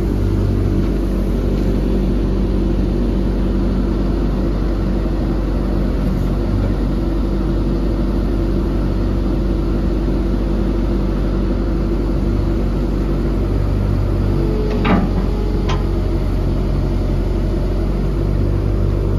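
Kobelco ED150 excavator's 95-horsepower diesel engine running steadily while the hydraulics angle its six-way dozer blade. Two short, sharp metal knocks come about fifteen seconds in.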